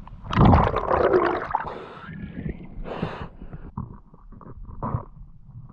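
Muffled underwater sound picked up through a camera housing as a freediver moves through the water: rushing and gurgling water, loudest in the first second and a half, then fainter, with a short burst about three seconds in and low knocks throughout.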